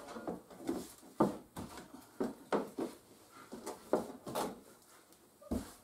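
Short, irregular knocks and bumps of a plastic tote bucket being handled as a weight block is set down inside it, with a deeper thump near the end.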